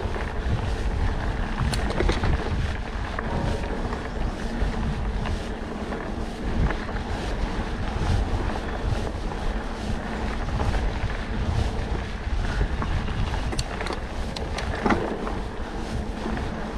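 Trek Stache 29+ hardtail mountain bike rolling along a dirt singletrack: steady tyre rumble and wind rushing over the microphone, with frequent small clicks and rattles from the bike over the bumps.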